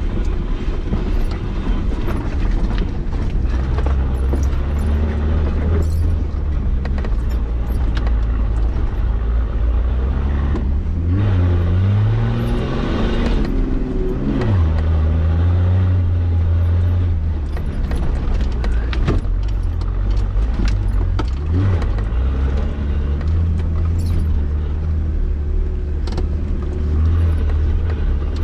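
Nissan Patrol Y60's engine working as the 4x4 crawls an off-road trail, its revs shifting up and down. The revs climb about halfway through and drop off sharply a few seconds later. Rattles and knocks from the vehicle run throughout.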